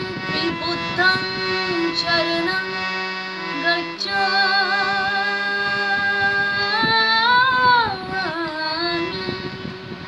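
A woman singing a Buddha vandana, a Buddhist devotional song, over a steady instrumental backing. About four seconds in she holds one long wavering note that rises near its end and then falls away.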